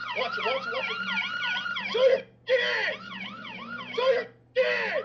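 Police car siren on a rapid yelp, rising and falling about four times a second, picked up by a body camera. It cuts out briefly twice.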